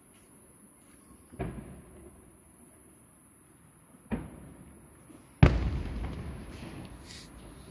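Aerial firework shells bursting overhead: three separate booms, a weaker one about a second and a half in, another about four seconds in, and a much louder one about five and a half seconds in that rolls on in a long fading rumble.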